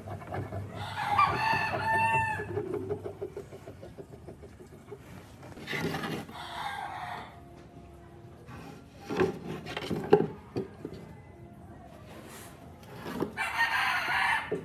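A rooster crowing once, a drawn-out pitched call about a second in, followed later by scattered knocks and short bursts of noise.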